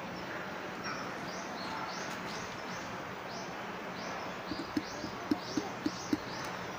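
Eurasian tree sparrows chirping: a run of short, descending chirps, about three a second, starting about a second in. In the last third, a few short low clicks sound under the chirps.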